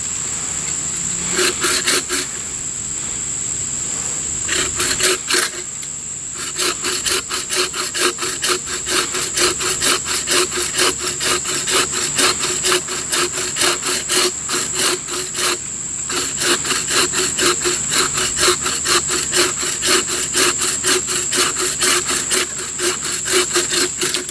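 Hand saw cutting through a newly dead, still-moist tree limb: a few short strokes at first, then a steady push-pull rhythm of about two strokes a second.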